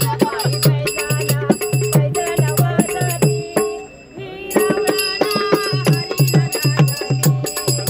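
Devotional bhajan (gaulan) sung by a woman's voice, with a drum beating about four strokes a second and small hand cymbals ringing in time. The music breaks off for about a second near the middle, then picks up again.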